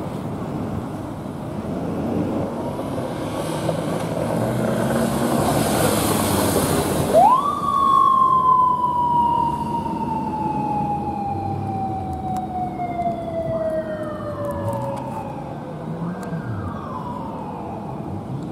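Traffic noise with a vehicle passing, then a Japanese police motorcycle's siren rising sharply about seven seconds in and falling slowly in one long wail, followed by shorter falling wails near the end: the bike is running on emergency.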